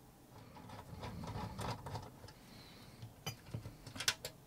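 Handling noise from the metal case of a Toyota Denso engine ECU being turned over on a cutting mat: a soft faint shuffle, then a few light clicks and taps of the case, the sharpest near the end.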